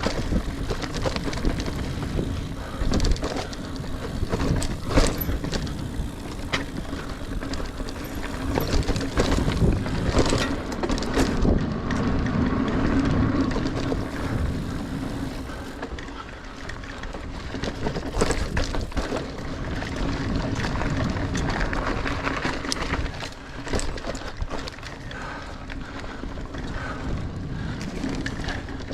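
Niner Air 9 RDO 29er mountain bike riding singletrack: tyres rolling over dirt with a steady rushing noise, and frequent clicks and knocks from the bike rattling over roots and stones, with wind on the microphone.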